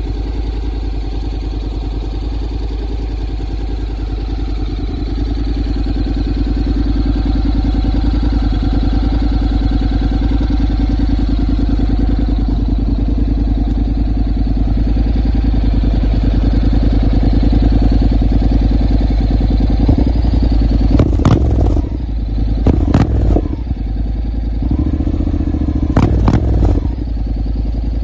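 Honda X-ADV750 parallel-twin engine idling through an Akrapovič slip-on exhaust, with a steady pulsing note that slowly grows louder. In the last several seconds the throttle is blipped a few times in quick, sharp revs.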